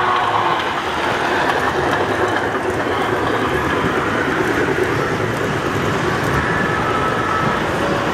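Model trains running past on a layout, with a steady rolling rumble and rattle of wheels on the track. A few steady tones fade out about half a second in.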